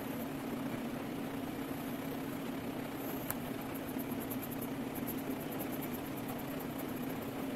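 A steady low mechanical hum, like a small motor running, over a faint background hiss. Faint, quick, high ticks come in during the second half, and there is a single sharp click about three seconds in.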